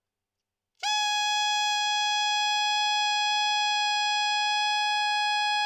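Alto saxophone playing one long, steady high F, using the basic fingering of octave key, all three palm keys and the upper side key. The note starts cleanly about a second in and is held at a constant pitch and volume until it stops at the end.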